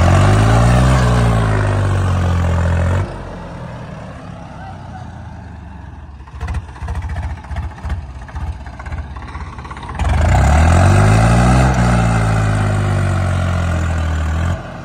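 Swaraj 744 XT tractor's three-cylinder diesel engine working hard under load as it climbs loose sand, its pitch rising and then falling. It drops abruptly to a quieter running sound with scattered knocks, then comes back loud about ten seconds in with the same rise and fall, cutting off shortly before the end.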